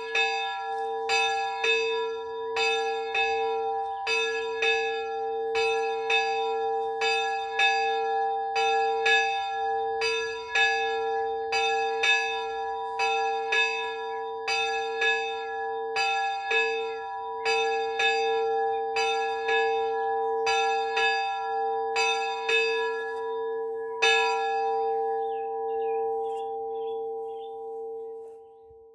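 A small 50 kg soul bell pitched on A (a2), cast by Miklós Gombos, swung by hand with its clapper striking evenly about every three-quarters of a second. The strikes stop about 24 seconds in and the last ring dies away.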